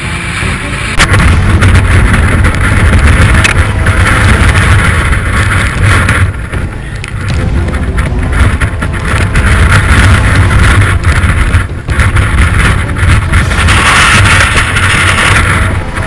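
Strong wind buffeting a helmet camera's microphone on an exposed mountain ridge: a loud, low rumble with hiss that swells and eases in gusts and drops back briefly twice. It sets in suddenly about a second in.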